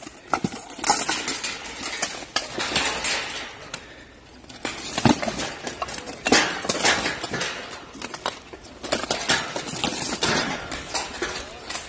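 Steel plate armor and weapons clanking in close grappling: irregular sharp metallic clangs and rattles as the armored fighters strike and shove each other against a metal pipe fence, with a brief lull about four seconds in.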